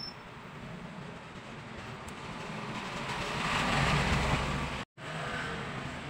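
Small DC clip fan running off a power bank: a steady whir of the motor and plastic blades with rushing air, swelling about three seconds in. The sound cuts out for an instant near five seconds.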